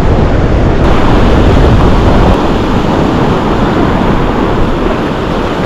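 Surf washing up the beach, with wind buffeting the microphone; the low wind rumble is heaviest for the first couple of seconds, then eases to an even hiss of surf.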